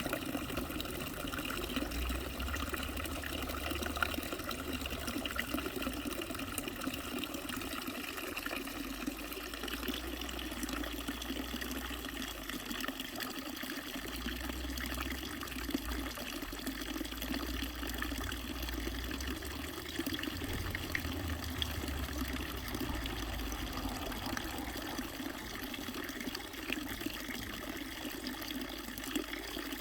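Flowing water running steadily, an even rushing sound with no breaks.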